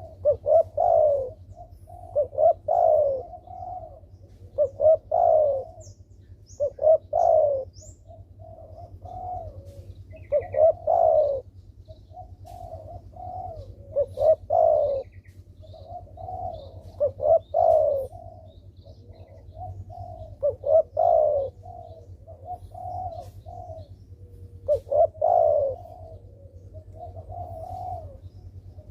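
Spotted dove cooing again and again, a phrase of several low coos about every two seconds. Faint high chirps of small birds sound now and then, over a steady low hum.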